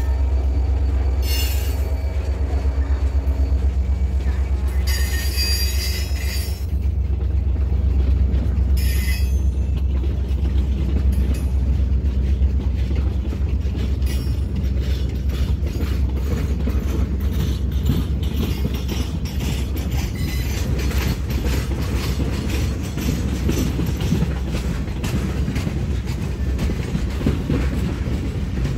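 Freight train of tank cars and boxcars rolling past close by, with a steady low rumble. Several short high-pitched wheel squeals come in the first ten seconds. From about halfway on, the wheels clatter rapidly over the rail joints.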